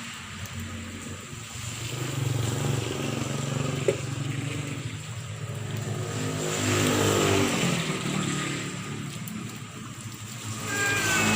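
Motor vehicles passing one after another, their engine hum swelling and fading; one passes about seven seconds in, its engine note falling as it goes by.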